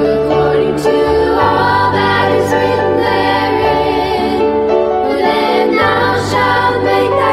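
Music with a choir singing over sustained accompaniment, the bass note changing about every two seconds.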